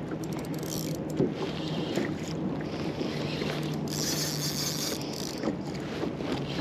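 A steady low hum under wind and water noise, with a few light knocks.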